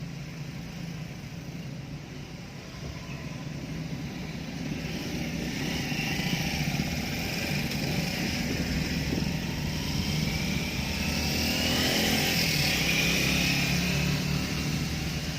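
Road vehicle running on a wet road: a steady low engine hum with a rising hiss of tyres on wet pavement that swells about a third of the way in and is loudest near the end.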